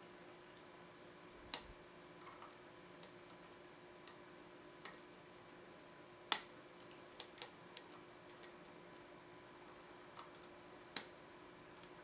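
Irregular sharp metallic clicks of a pick and tension wrench working the pin tumblers in the keyway of a brass Abus 84/70 padlock, about ten clicks with a cluster between six and eight seconds in and the loudest about six seconds in.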